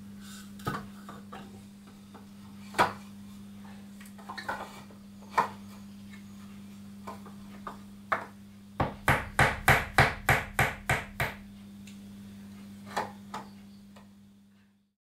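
Hammer blows driving a nail into the wall to hang hexagonal wall shelves: a quick run of about ten strikes, about four a second, a little past halfway, after scattered single knocks of the shelves being set against the wall. A steady low hum runs underneath, and the sound cuts off just before the end.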